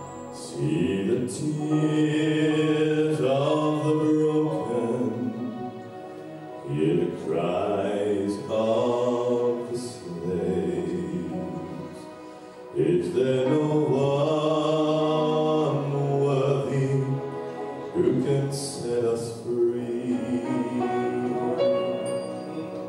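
Male gospel vocal group singing in close harmony, with a bass voice beneath, in long held phrases that swell and ease off about six and twelve seconds in.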